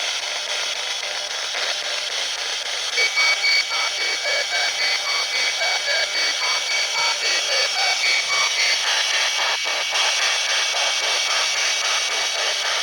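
Loud steady static-like hiss. From about three seconds in, a thin high whine joins it, along with quick chirping blips that flicker in level.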